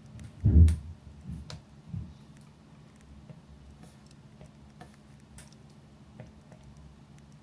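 Campfire crackling: sparse sharp pops and clicks over a low steady hum. A loud dull thump about half a second in, followed by two softer knocks.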